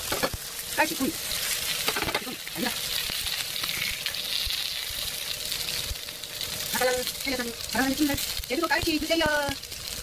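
Hairtail fillets sizzling and spattering in hot oil in a frying pan, with sharp clicks of metal tongs moving and turning the pieces.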